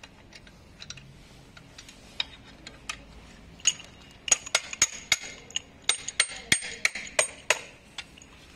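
Sharp metallic clicks and clinks of a hex key working a bolt on an electric scooter's stem bracket: a few light ticks at first, then a quick run of about three or four clicks a second through the second half, stopping shortly before the end.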